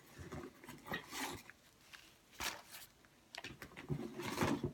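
Makeup pouches rustling as they are gathered up and handled, in short scattered bursts.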